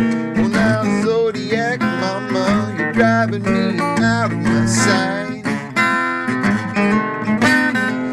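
A man singing to a strummed acoustic guitar.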